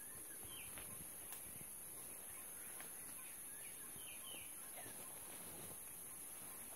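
Rainforest ambience: a few short, downward chirps from birds scattered through, over a steady high hiss.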